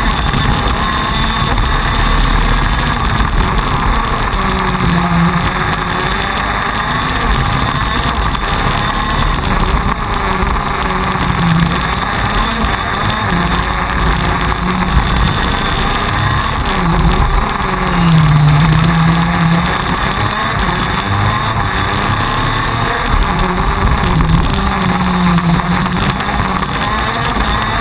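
TM 125 cc two-stroke shifter kart engine at racing speed, its pitch rising and falling again and again as the kart accelerates and brakes through corners, heard close up from the onboard camera with wind rush.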